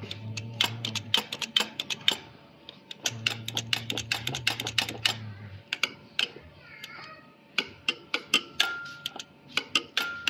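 Many quick, irregular clicks and ticks, several a second. A low hum runs briefly at the start and again for about two and a half seconds from three seconds in.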